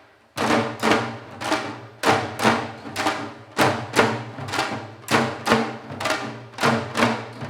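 Janggu (Korean hourglass drums) played in a seoljanggo piece: after a brief break right at the start, a steady rhythm of sharp strokes, about two a second.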